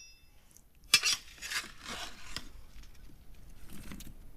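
A utensil scraping and rubbing against roast potatoes in a roasting tray, with a sharp knock about a second in and a few scraping strokes after it, then fainter rubbing.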